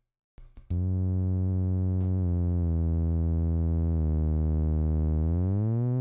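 Alchemy software synthesizer playing a pitched riser on sawtooth oscillators: a low note with many overtones held steady for several seconds, then beginning to glide upward in pitch near the end. A few short clicks come just before the note starts.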